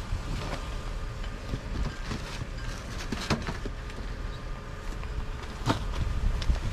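Low rumbling handling noise on a close-worn camera, broken by a few sharp knocks and clatters of a metal hook pole against a steel dumpster, the loudest about three seconds in and again near the end.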